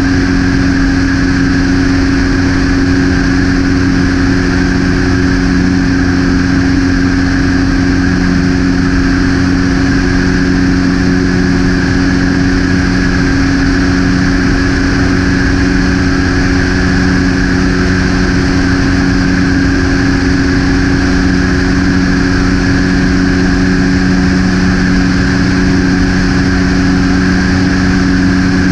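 Light propeller aircraft's engine and propeller droning steadily in level cruise flight, with a constant rush of airflow. The pitch holds steady throughout.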